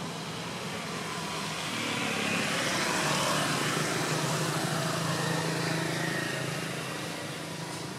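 A motor vehicle passing, its engine hum and road noise swelling through the middle and fading again toward the end.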